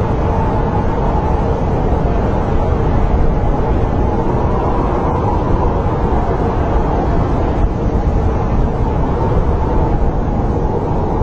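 Snowstorm wind blowing steadily: a deep, even rumble with a faint wavering whistle in it.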